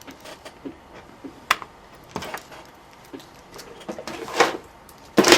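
Scattered small clicks, taps and rustles of tools and parts being handled on a workbench, with a sharp click about a second and a half in and a louder clatter near the end.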